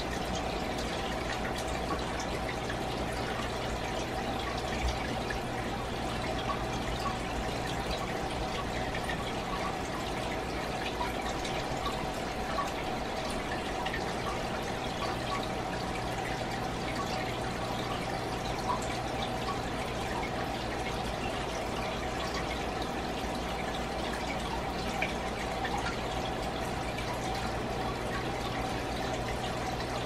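Fish aquarium water trickling and dripping steadily, with small drips scattered through it, over a low steady hum.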